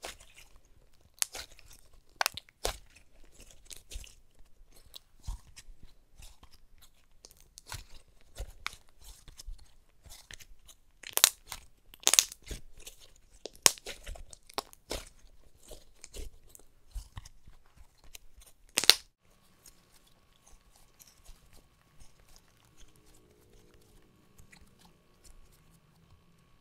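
Butter slime squished, folded and poked by hand, giving irregular clicks and little pops as trapped air bursts. The clicks stop about two-thirds of the way through, leaving only faint steady tones.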